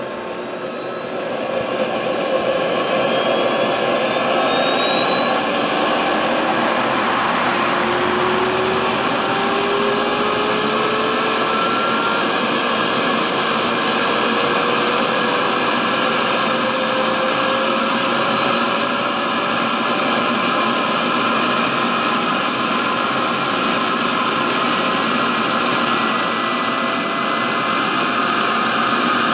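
Wren 75 KPro model jet turbine running up on its first successful start: a loud steady rush with whines that rise slowly in pitch as it speeds up. The level climbs over the first two seconds, then holds.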